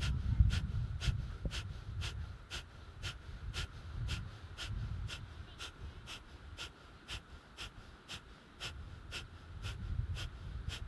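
Kapalbhati (Breath of Fire) pranayama breathing: short, forceful exhalations through the nose at a steady pace of about two a second. A low rumble runs underneath.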